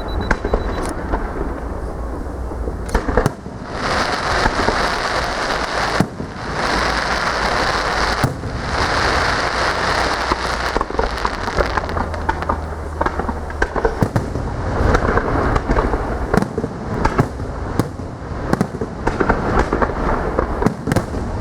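Fireworks display going off in a continuous barrage of bangs and crackling. A high hiss joins in a few seconds in and runs for several seconds.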